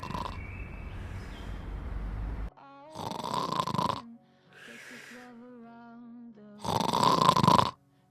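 A person snoring loudly: one long snore with a deep rumble over the first couple of seconds, then two more loud snores at about three and seven seconds in. A light melody plays in the gaps between them.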